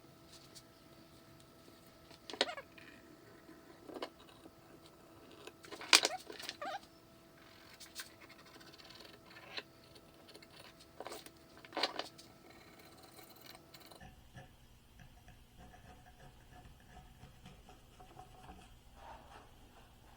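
Scattered knocks and clatters of wooden pieces and tools being handled in a workshop over a faint steady hum, the loudest knock about six seconds in. The hum stops abruptly about two-thirds of the way through and the background goes quieter.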